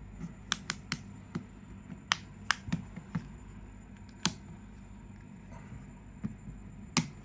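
Sharp, irregular plastic clicks as the clipped-in inner panel of an OPPO F15 phone is pried off and its locking clips pop free, about nine clicks spread across a few seconds.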